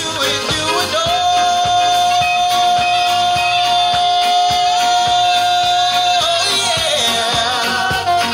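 Live band music with a male lead vocalist singing over a drum kit; a long, steady high note is held from about a second in until about six seconds, then the melody moves on.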